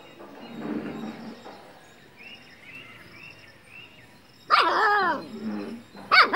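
A puppy and an adult dog play-fighting: about four and a half seconds in, a loud whining yelp that falls in pitch over about a second, then a short sharp yip near the end.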